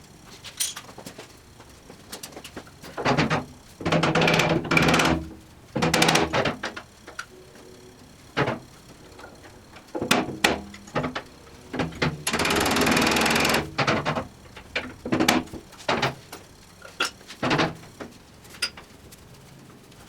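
Workshop sounds of parts and tools being handled: scattered knocks and clatters, with a few longer rasping or whining passes. A steady hiss lasts about a second and a half a little past the middle.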